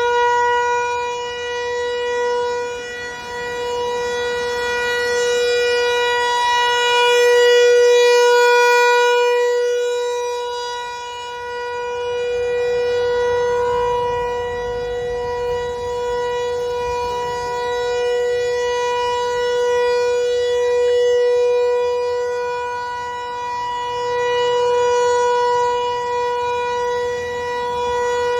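Federal Signal 508-128 rotating outdoor warning siren sounding a steady-pitch tone, the Alert signal, after winding up to full pitch right at the start. Its loudness swells and fades every several seconds as the rotating head sweeps past.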